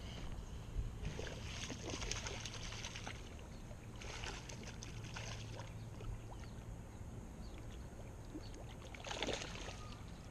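Water splashing and sloshing beside a kayak in several bursts of a second or two, over a steady low hum.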